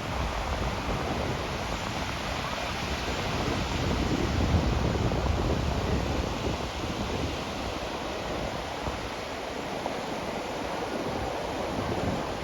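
Sea waves washing up on a sandy beach, a steady surf hiss that swells about four seconds in, with wind rumbling on the microphone.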